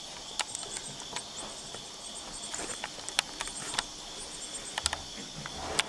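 Steady chorus of crickets and other insects, with repeated short high chirps over a continuous high buzz, broken by scattered sharp clicks.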